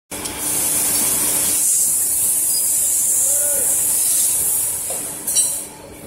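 A steady, loud hiss like escaping air that fades away about five seconds in, then a short, sharp metallic clink as die-cast metal pieces are broken apart.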